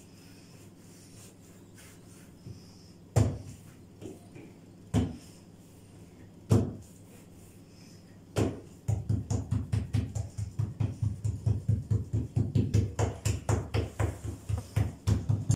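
Hands slapping and patting soft bread dough on a silicone mat on a countertop. A few single dull slaps come first, then from about nine seconds in a quick, even run of pats, about four a second, as the dough is pressed flat with the palms.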